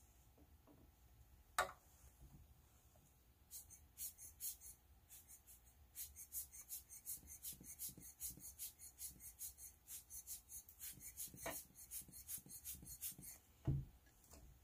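Rubber bulb air blower squeezed over and over, giving short airy puffs in quick succession, several a second, as it pushes wet alcohol ink across the paper. A sharp click comes about a second and a half in, and a dull thud near the end as something is set down on the desk.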